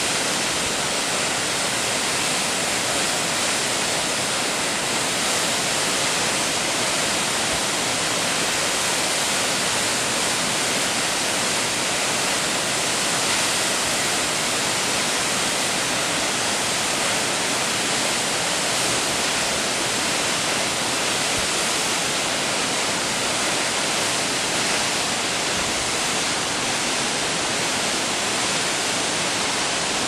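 A tall waterfall of three tiers, about 125 m in all, pouring onto rocks: a steady, loud rush of falling water, bright and hissy, with no change in level.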